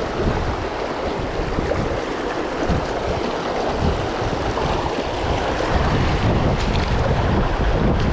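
Steady rushing water with wind buffeting the microphone, the low rumble of the wind growing stronger near the end.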